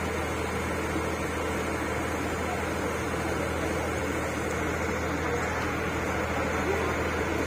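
Motor of a small wooden canal boat running steadily under way: an even, low mechanical hum that holds the same pitch and level throughout.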